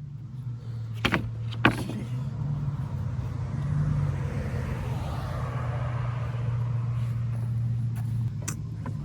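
Wood-Mizer LT15WIDE portable sawmill's engine running steadily, with sharp knocks twice about a second in and once near the end.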